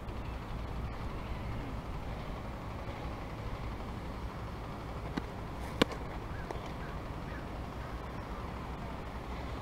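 A softball pitch smacking into the catcher's mitt: one sharp pop about six seconds in, with a fainter click just before it, over a steady low outdoor rumble.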